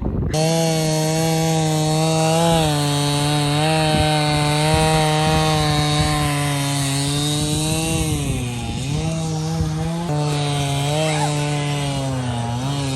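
Small gas engine running steadily at a held speed, its pitch sagging briefly twice as if bogging under load.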